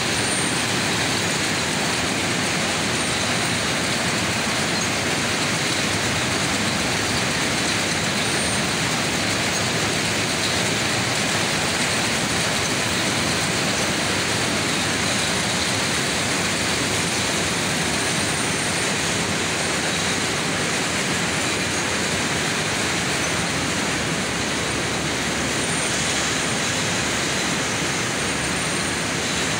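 Jute mill processing machines running together: a loud, steady, unbroken mechanical din as raw jute is fed through the rollers.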